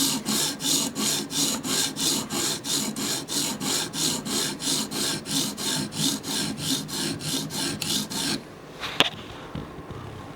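80-grit CBN sharpening stone on a Hapstone guided sharpener rasping back and forth across a steel knife edge in quick, even strokes, about three a second. The strokes stop about eight seconds in, followed by a single sharp click.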